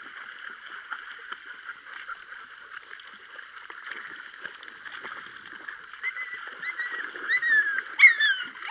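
Shallow creek water rippling and gurgling, with light splashing from Small Munsterlander puppies wading through it. A few short, high, falling calls come near the end, the loudest about eight seconds in.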